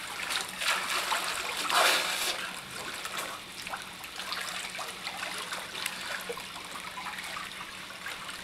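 Pool water splashing and sloshing as a person swims through it, with louder splashes about half a second and two seconds in, then a softer steady wash of moving water.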